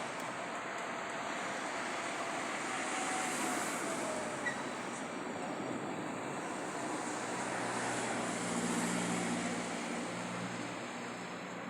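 A loaded freight train of GFD wagons rolling past with a steady rolling noise. About seven seconds in, a low engine hum joins it for a few seconds.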